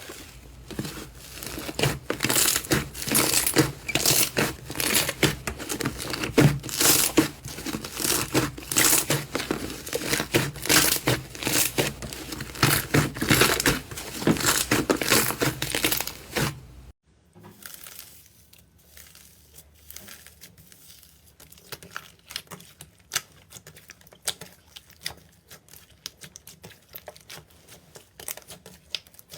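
Slime being squeezed, pressed and stretched by hand: dense sticky crackling and popping. It cuts off abruptly about two-thirds of the way through, giving way to a quieter, sparser crackling.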